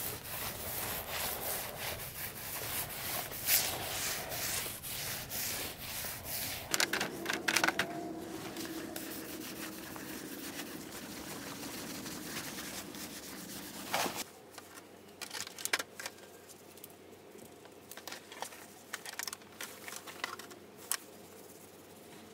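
Paint roller rolling porch paint onto rough concrete steps, a run of repeated rubbing strokes. A faint steady hum joins about seven seconds in, and after about fourteen seconds it goes quieter, with only scattered light ticks.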